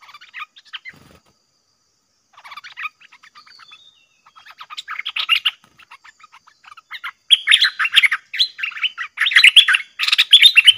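Stripe-throated bulbul singing in quick, chattering warbled phrases, with a short pause about a second in. The phrases come faster and louder in the second half.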